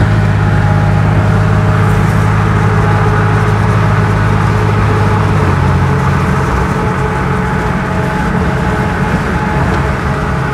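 Engine and road noise inside a vehicle's cab while driving at highway speed: a steady low drone that shifts down and eases slightly about halfway through.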